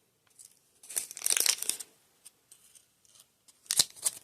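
Small packet of shimmering essence powder being torn open: a crinkly rip about a second in, then a few sharp crackles near the end.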